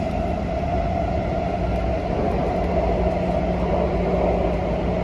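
Taipei Metro C341 train running, heard inside the passenger car: a steady rumble with a constant roar, even in level throughout.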